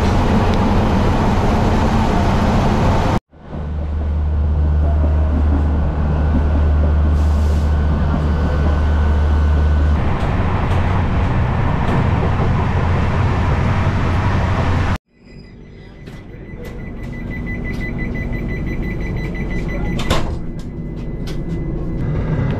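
Railway noise in three abruptly cut clips: first loud broad train noise, then a steady low hum that drops away about ten seconds in, then a quieter stretch with scattered clicks that slowly grows louder.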